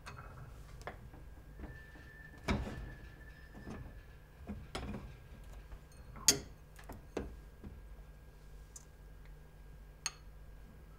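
Rice paddle scooping cooked rice out of an electric rice cooker's inner pot into a small bowl: a few scattered light knocks and clicks of the paddle and bowl against the pot, the sharpest about six seconds in.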